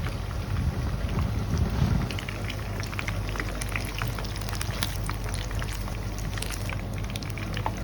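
Chicken deep-frying in hot oil, sizzling with scattered crackles and pops over a steady low hum.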